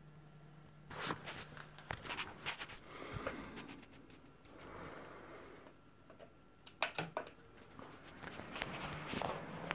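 Handling and rustling with sharp clicks, a cluster about seven seconds in as the desktop PC's front-panel power button is pressed. Near the end a steady rush of fan noise starts as the PC powers up.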